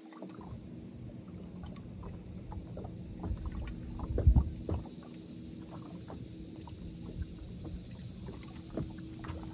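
A bass boat's electric trolling motor hums steadily as it starts up, under light knocks and splashes against the hull, with one louder thump about four seconds in.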